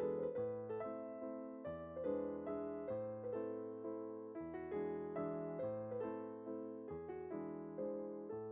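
Background piano music: a gentle melody of single notes over a steady bass.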